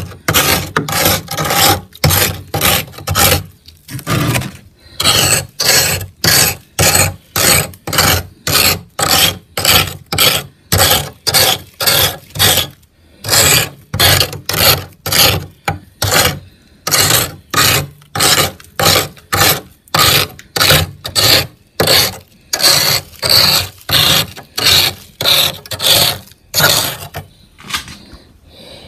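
Frost being scraped off a freezer wall in quick repeated strokes, about two to three a second, each a short rasp, with a few brief pauses.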